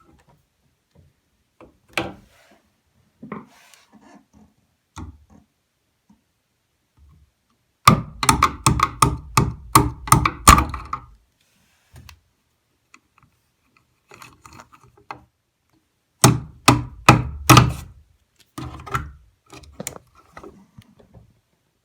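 Tools knocking and tapping on wood: a few single knocks, then quick runs of sharp taps, several a second, in the middle and again toward the end.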